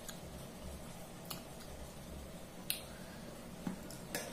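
Fingers mixing rice and fish curry on a stainless steel plate: soft squishing with a few sharp clicks of fingers and nails against the steel, the sharpest a little under three seconds in, over a steady low hum.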